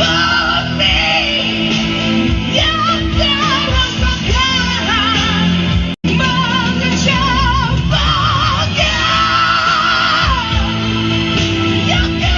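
Male rock vocalist singing high, sustained chest-voice notes with wide vibrato over a full band. About halfway through, the sound drops out for an instant as one recording is cut to another.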